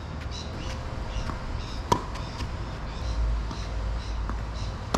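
Tennis ball struck by rackets and bouncing during a rally on a hard court: one sharp, loud pop about two seconds in, with fainter pops later.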